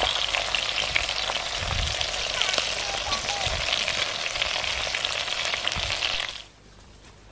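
Wood campfire crackling and hissing: a steady hiss full of small snaps, cutting off abruptly near the end.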